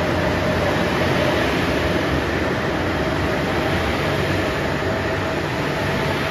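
JR Shikoku 2700 series diesel railcar train pulling out of the station past the platform: a steady drone of its diesel engines mixed with wheel-on-rail running noise.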